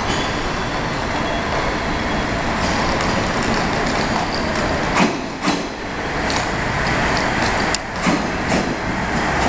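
JR KiHa 110 diesel railcar pulling into the platform: a steady rumble of engine and running gear. Its wheels clack over rail joints twice about halfway through, then several more times near the end.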